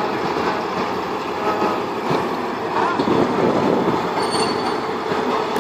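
Train running on rails: a steady rumble of wheels and running gear, with a red DR class 112 diesel locomotive on the neighbouring track during a side-by-side run.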